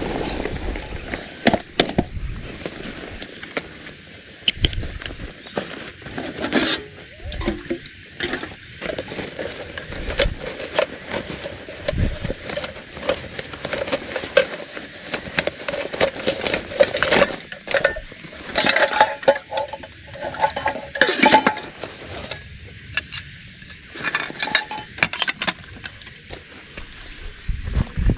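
Camp gear handled by hand: a stainless steel canteen and metal cup clink and knock, while a canvas pouch and backpack straps rustle.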